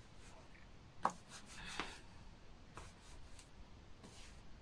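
Faint rubbing and rustling of hands wiping spilled foundation off the fingers, with a few small clicks; the sharpest click comes about a second in.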